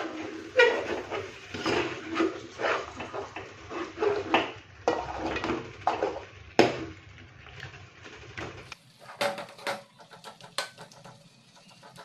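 Metal spoon scraping and knocking against a metal kadai as chicken pieces in thick masala are stirred and turned, in irregular strokes about one or two a second. Near the end it turns to quieter, lighter clicks.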